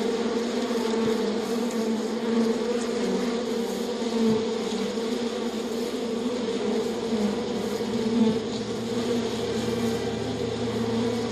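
Bees buzzing in a steady, unbroken drone.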